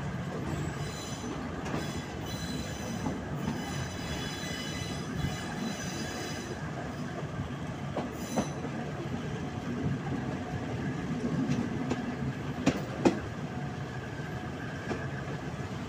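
Passenger train heard from a carriage as it rolls over curving track: the steel wheels squeal high and shrill for the first several seconds. After that comes steady rolling noise with a few sharp clacks over rail joints and points, the loudest pair near the end.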